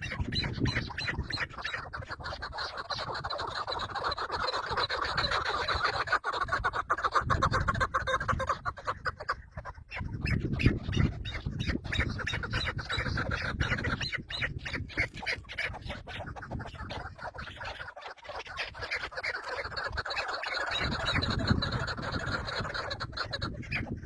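Birds giving harsh, quacking, squawking calls in rapid strings, with low thumps in between.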